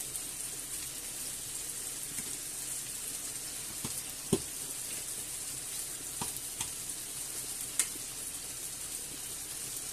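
Chicken pieces and chorizo slices sizzling steadily in hot olive oil in a frying pan, with a handful of sharp clicks, the loudest about four seconds in.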